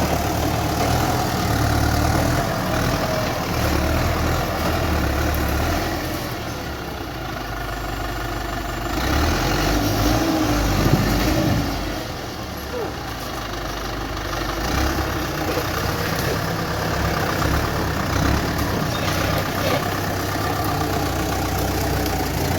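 Tractor engine running continuously, its low hum growing louder and softer as the load changes.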